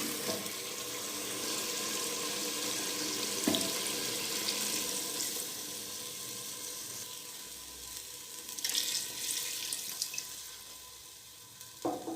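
Water poured into a hot pot of fried mutton and spices, splashing and hissing, the sizzle gradually dying down over several seconds. A couple of light knocks.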